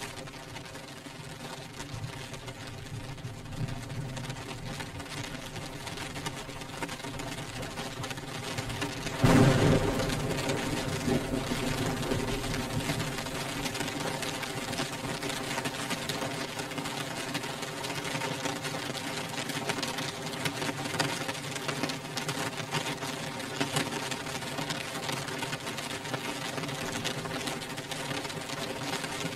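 Rain beating on window glass: a dense patter of drops. About nine seconds in a sudden louder burst hits, and the rain stays heavier after it.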